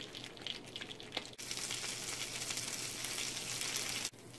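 Sandwich frying in butter and olive oil in a nonstick pan: a steady sizzle with fine crackles and pops, getting louder about a second and a half in.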